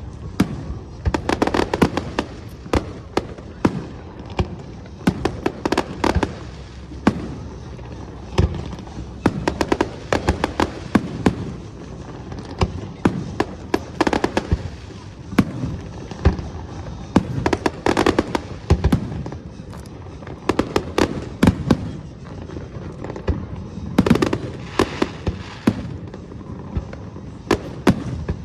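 Aerial fireworks display: a dense, irregular run of shell bursts banging and popping, often several in quick succession, with crackle between them.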